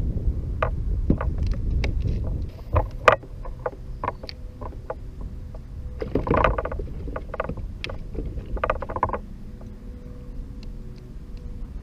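Scattered knocks and clicks of gear being handled on a fishing kayak, with denser clusters about halfway through and again a little later. A low wind rumble on the microphone fills the first couple of seconds.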